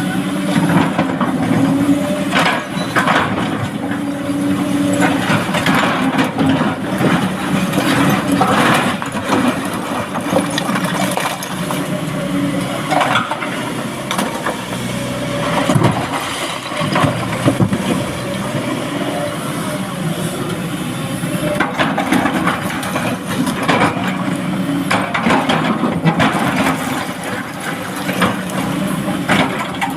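Heavy diesel engine of an excavator working steadily, with repeated knocks and clatter of rock being loaded into a dump truck.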